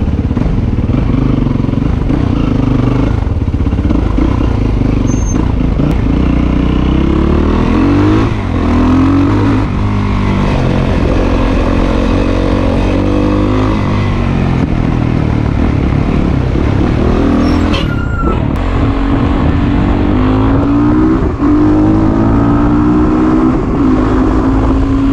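Motorcycle engine under way, picked up from the rider's chest, its pitch climbing again and again as it accelerates through the gears, with short dips at the shifts.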